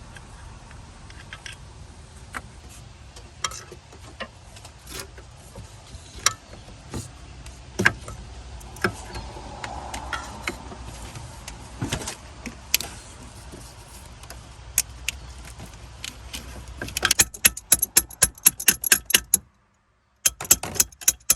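Metal hand tools clicking and clinking against metal while the brake master cylinder is worked loose, with scattered single clicks and near the end a quick run of sharp clicks, several a second.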